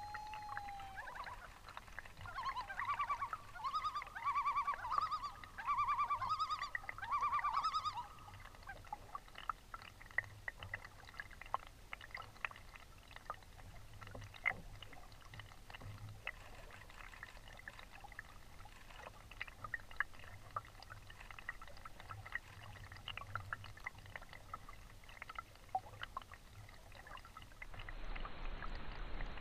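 Common loon calling a yodel: about eight repeated rising-and-falling phrases over some six seconds. Then gentle water lapping with small clicks and trickles, turning to a louder, duller wash near the end.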